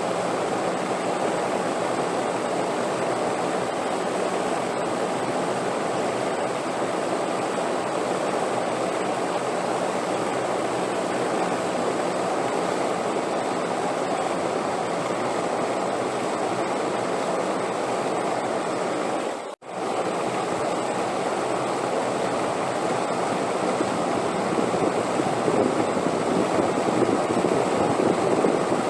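Steady rushing wind noise, even and unbroken, cutting out for a split second about two-thirds of the way through and growing slightly louder near the end.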